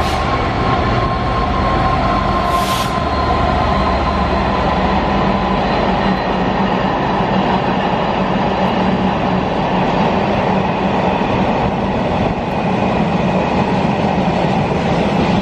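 DB Cargo Class 66 diesel locomotive running past and moving away, its two-stroke V12 engine giving a loud, steady note over wheel and rail noise. A short hiss comes about two and a half seconds in.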